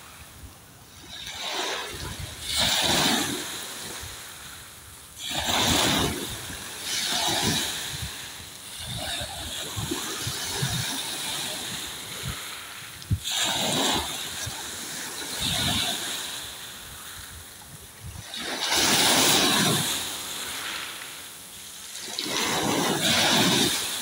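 Sea waves washing and splashing against the shore close by, swelling in a loud rush every few seconds and ebbing between.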